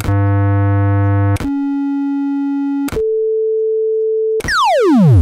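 Electronic synthesized tones: three steady beeps at different pitches, each cut in with a click, the first buzzy over a low hum and the last a pure tone, then a fast falling sweep about four and a half seconds in.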